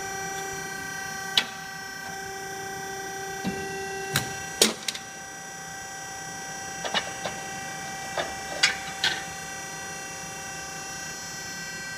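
Scotchman DO 120/200-24M hydraulic ironworker running with a steady hum while its notcher cuts a steel flat bar, giving a sharp snap and knock about four and a half seconds in. Several lighter metal clicks and clanks follow as the notched bar is shifted on the steel table.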